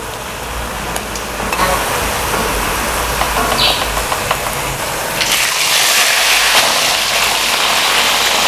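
Hot oil in a wok sizzling lightly over a low rumble while fried small fish drain on a metal skimmer; about five seconds in, a loud, even sizzling starts as a fresh batch of small fish fries in the oil.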